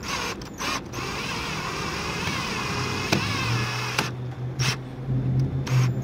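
Cordless drill driving a screw into a door latch faceplate on a metal door frame. Two short bursts come first, then a steady, slightly wavering whine for about three seconds, and a lower hum with a few short bursts near the end. The screw is a replacement that the owner says was wrong for a metal frame, and it wore down as it went in.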